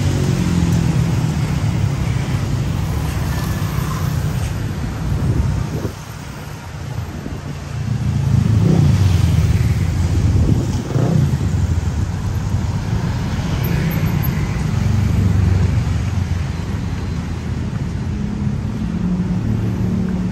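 A large engine running loudly and steadily, revving up briefly twice near the middle.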